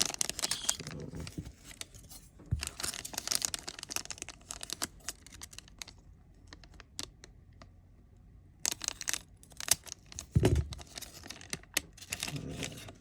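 A foil trading card pack being handled and opened: crinkling and tearing of the wrapper with many small clicks and ticks. The handling stops for a couple of seconds about halfway through, and there are a few dull knocks near the end.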